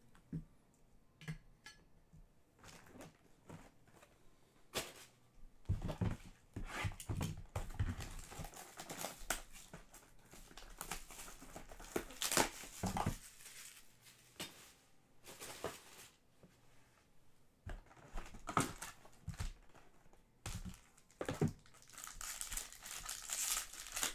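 Cellophane shrink-wrap crinkling and tearing as it is stripped off a trading-card hobby box, with irregular crackles and handling knocks. A few faint clicks come first, and near the end a foil card pack crinkles.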